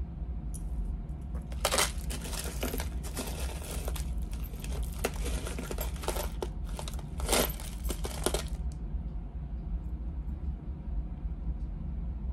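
Jewelry pieces clinking and rattling as they are rummaged through and sorted, a dense run of small clicks lasting about seven seconds from a second and a half in, with a couple of sharper clatters, over a steady low hum.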